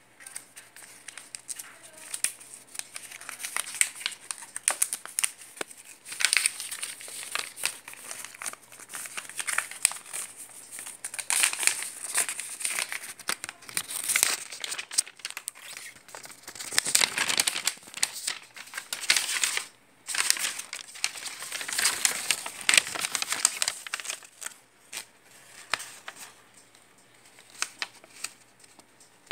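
Paper and plastic earphone packaging crinkling and rustling as it is handled, in irregular bursts with short lulls near the end.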